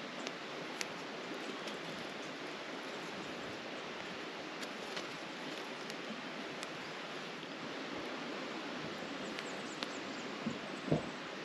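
Wood campfire crackling, with a few faint sharp pops over a steady outdoor hiss, and a short soft thump near the end.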